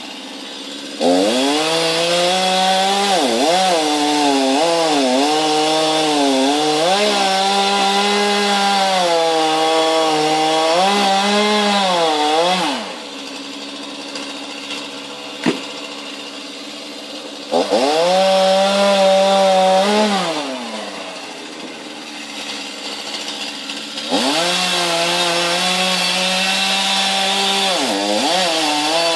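Chainsaw cutting into a conifer trunk: the engine revs up and its pitch dips and recovers as the chain bites into the wood, in three long cuts with the saw dropping to idle in between. A single sharp knock comes in the middle pause.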